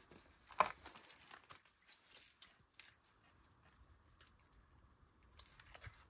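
Faint handling noise from reeling in a fish on an ice-fishing rod: scattered small clicks and crunches, with one sharper click about half a second in.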